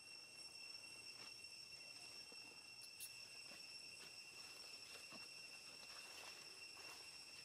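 Faint, steady high-pitched insect drone, with a soft click about three seconds in.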